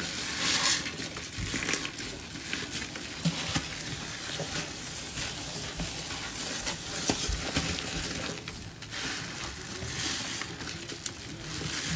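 A grout sponge loaded with thick cleanser paste squeezed and wrung by hands in rubber gloves in a sink, giving a wet squelching with many small crackles of foam.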